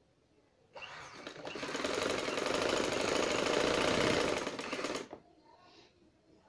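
Domestic sewing machine stitching a strip of fabric: the needle clatter starts about a second in, speeds up and grows louder, then stops about five seconds in.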